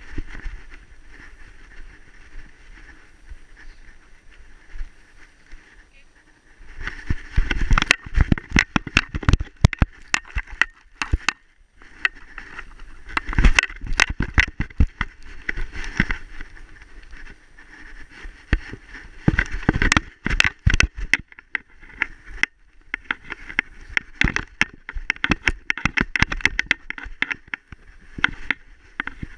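A dog running through snow, heard from a camera strapped to its back: rapid thudding, crunching paw-falls and the jostling of the harness-mounted camera. It starts softer, then comes in long spells of fast strides with short breaks.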